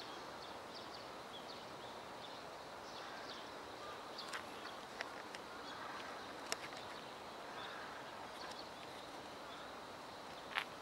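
Outdoor ambience: a steady faint hiss with scattered faint bird chirps and a few sharp clicks, the loudest one near the end.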